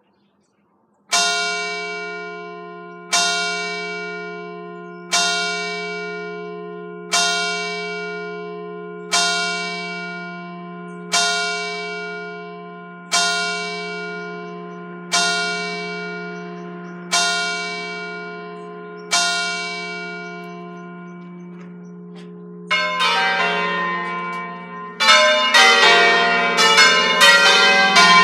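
Church tower clock striking ten o'clock on a bell: ten single strokes about two seconds apart, each left to ring and fade. A few seconds after the tenth stroke, the church's five Ambrosian-system bells, tuned in F, start the programmed solemn concerto. The bells come in together and ring quicker and louder from about three-quarters of the way through.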